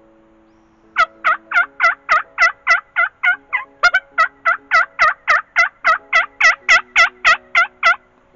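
Turkey calling: a long run of loud, short, evenly spaced notes, about three or four a second, with a brief break about halfway through. Soft background music plays underneath.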